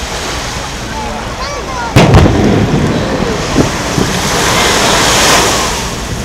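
Aerial firework going off with one loud boom about two seconds in, followed by a couple of smaller bangs and a hissing crackle that swells and fades near the end. People's voices chatter throughout.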